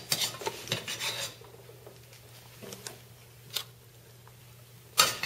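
Kitchen knife and utensils clattering against a cutting board and dishes: a quick run of taps and knocks for about the first second, then a few scattered clicks, and a sharp knock near the end.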